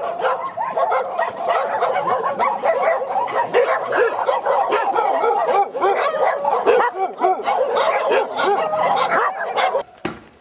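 Many dogs barking and yelping at once, a dense overlapping chorus with no break, that stops suddenly near the end.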